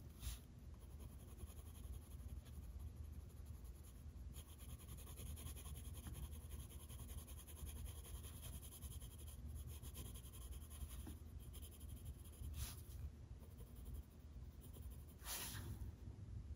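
Faint scratching of a colored pencil on paper as a bow is coloured in, with a couple of louder strokes near the end.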